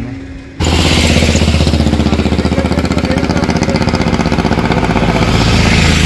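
A motor vehicle's engine cuts in loudly about half a second in and runs with a rapid, even beat and a steady low hum.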